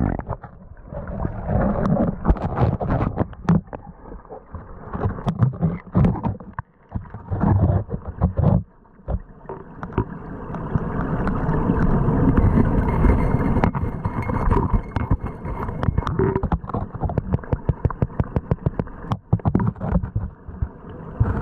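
Muffled rush and rumble of river current heard with the microphone underwater, broken by frequent sharp clicks and knocks of stones and gravel.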